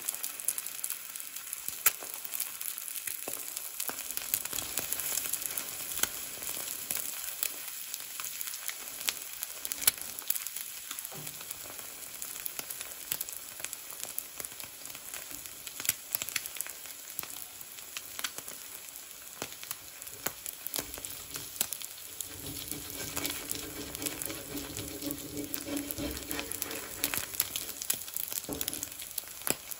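Food frying in a Lodge cast iron skillet: a steady sizzle with scattered pops and crackles.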